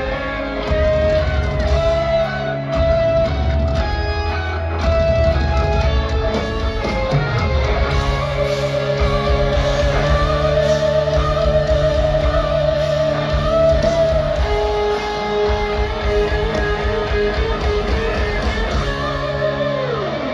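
Live hard rock band playing loud in an arena: electric guitars, bass and drums, with a lead line holding long wavering notes over the chords. Right at the end the whole band slides down in pitch and stops.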